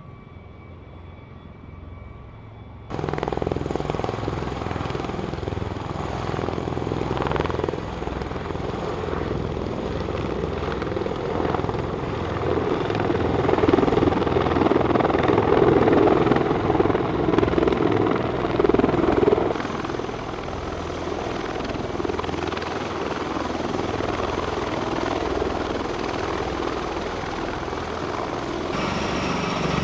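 Steady rotor and turbine noise of V-22 Osprey tiltrotors in flight and coming in to land. It is quieter for the first few seconds, jumps sharply louder about three seconds in, is loudest in the middle, and eases somewhat after about twenty seconds.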